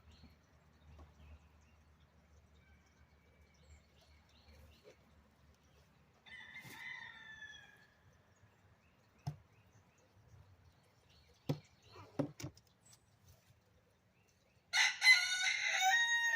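A rooster crowing loudly near the end, one long call, with a fainter call about six seconds in. A few sharp knocks fall between the two calls.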